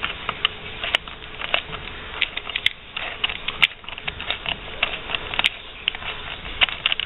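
Irregular small clicks and rattles as a 5 mm hex key turns out the bolt on a plastic e-bike fender bracket. The loosened plastic fender and bracket knock as they shift.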